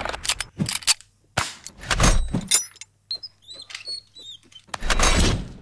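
Plastic clicks, snaps and knocks of a GoPro Hero 7 Black action camera being handled and fitted into its frame mount, with the mount's thumbscrew being worked. Two louder rushing bursts come at the start and near the end, and a few short high chirps just past the middle.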